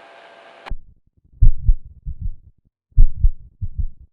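Heart sounds beating in grouped thumps: about every one and a half seconds a cluster of two pairs of deep beats, a coupled rhythm typical of bigeminy, here catheter-induced. A steady electrical hum cuts off suddenly just before the beats begin.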